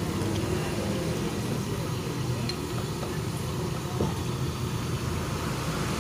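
Steady hum of road traffic going by, with indistinct voices in the background.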